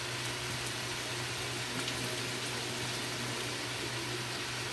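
Pork, liver, carrots and green peas sizzling and simmering in a frying pan: a steady hiss, with a low steady hum underneath.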